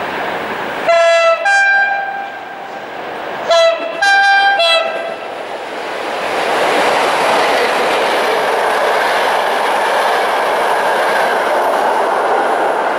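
Electric locomotive hauling passenger coaches sounds two signals on its two-tone horn, each stepping between a low and a high note. From about six seconds in, the train rolls past with a loud, steady rumble of wheels on the rails.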